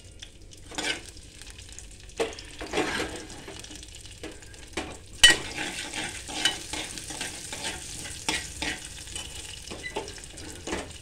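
Green chillies and tempering seeds frying in hot oil in an aluminium pressure-cooker pan: a steady sizzle, with a steel spoon stirring and scraping against the pan. There is one sharp clink of the spoon on the metal about five seconds in.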